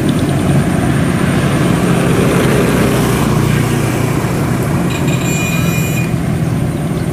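Tracked rice combine harvester's engine running steadily under load as the machine crawls through mud. A brief high-pitched squeal cuts in about five seconds in and stops after about a second.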